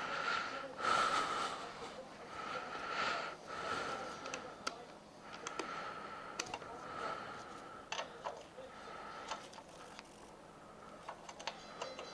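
Scattered light clicks and ticks of hand tools and metal parts being worked on a bike's axle while fitting wheelie pegs, with soft rustling swells between them.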